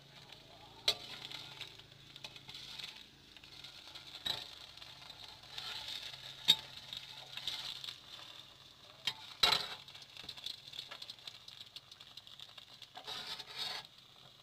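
Batter frying in oil in a non-stick pan gives a soft, steady sizzle. Several sharp clicks and knocks of kitchen utensils are scattered through it, the loudest about six and a half and nine and a half seconds in.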